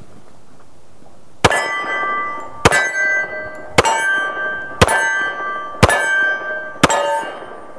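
Colt 1911 pistol firing six shots, about one a second, starting about a second and a half in. Each shot is followed by a ringing metallic clang.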